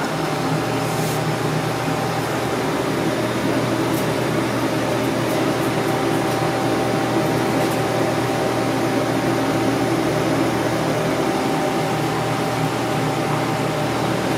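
Steady even rush of a ventilation fan, with a faint steady hum under it.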